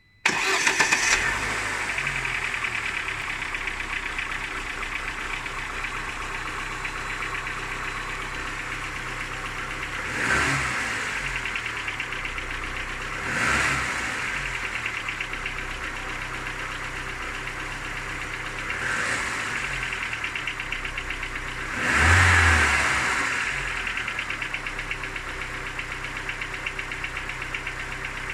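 Car engine starting and running with a rapid knocking, its throttle blipped four times, the last blip the loudest. The knock is one the owner hears only while the engine is cold and which goes away once it reaches 90 °C, with compression good in every cylinder.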